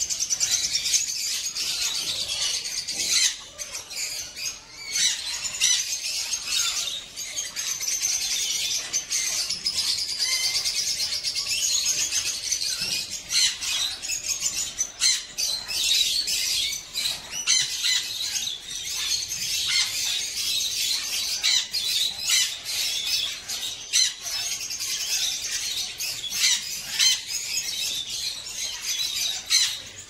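A room full of caged pet birds, budgerigars and parrots among them, chirping and squawking together in a dense, unbroken chorus, with many short, sharp calls standing out.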